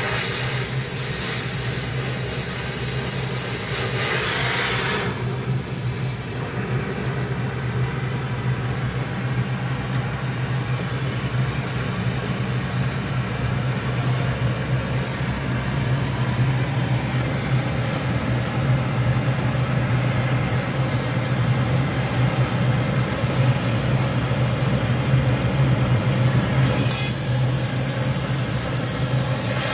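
Gas welding torch flame hissing while it heats the end of a steel pipe, strong for the first five seconds or so, thinner through the middle and strong again near the end. A steady low hum runs underneath throughout.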